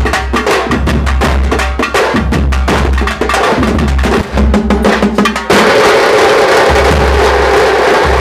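A street drum band of bass drums and snare drums beating a fast, loud rhythm. About five and a half seconds in, the sound changes abruptly to a denser, more continuous din over the same low drum beats.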